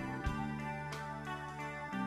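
Quiet instrumental background music with slow, held notes.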